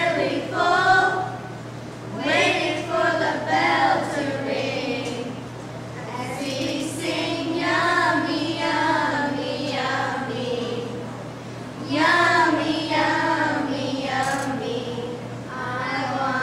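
A small group of girls singing together, in several phrases with brief pauses between them.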